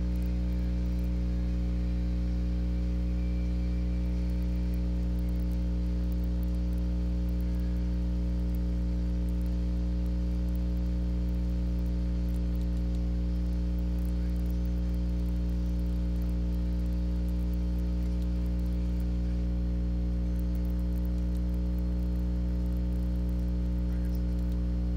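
Steady electrical mains hum with a buzzy stack of overtones, unchanging in level throughout.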